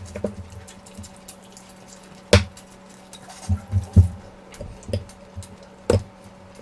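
Close-miked eating sounds: wet chewing and mouth smacks from someone eating curry and rice, irregular soft knocks with a few sharper clicks, over a faint steady hum.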